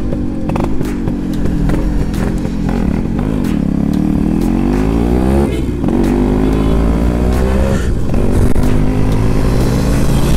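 Yamaha RX-135's two-stroke single-cylinder engine on the move: the note drops as the bike slows through a U-turn, then climbs as it accelerates away. The engine note breaks off briefly about five and a half and eight seconds in, where the rider shifts up a gear.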